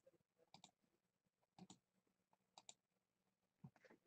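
Near silence with faint, short clicks that come in pairs, about once a second.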